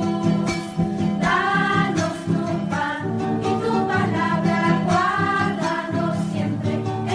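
A Catholic entrance hymn sung in Spanish, with voices singing held, moving phrases over a steady instrumental accompaniment.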